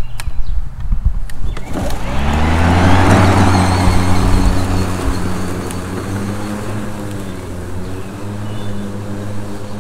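Ryobi 40V brushless 20-inch cordless mower starting after a few clicks: about two seconds in the motor and blade spin up with a rising whine, then settle into a steady hum as the mower cuts grass.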